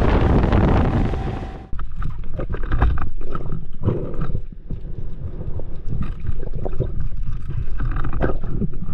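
Wind rushing over the microphone at sea, then a sudden change about two seconds in to muffled, irregular gurgling and knocking of water.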